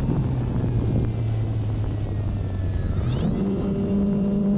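Electric motor and propeller of an OMP Bighorn RC airplane running in flight as a steady hum over rushing wind on the onboard camera. About three seconds in the pitch rises quickly and holds higher as the throttle is advanced for a climb.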